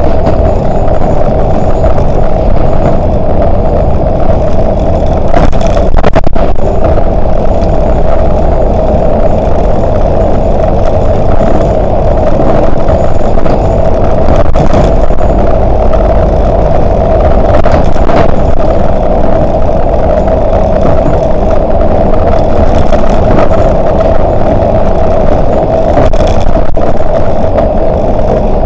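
Volvo 8900LE city bus under way at steady speed: engine, drivetrain and road noise with a constant drone, and a few brief knocks.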